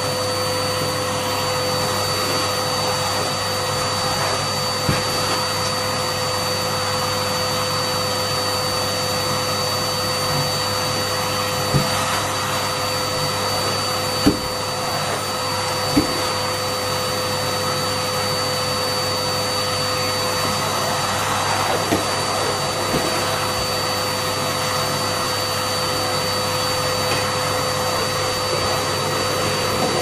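Numatic Hetty tub vacuum cleaner running steadily with a constant motor whine while its nozzle is worked over stair carpet. A few sharp knocks come from the nozzle bumping the steps, the loudest about halfway through.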